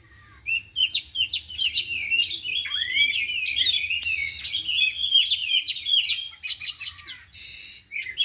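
Oriental magpie-robins (kacer) singing a rapid, varied stream of whistles and chirps packed with mimicked calls. A harsh rasping note comes near the end, and the song starts again after it.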